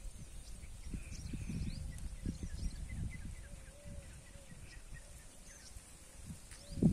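Outdoor field ambience: many faint, short, high chirps, typical of small birds, over an uneven low rumble and rustle.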